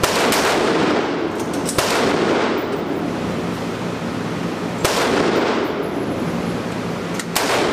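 Gunshots on an indoor firing range: a few sharp shots several seconds apart, each trailed by a long echo off the range walls.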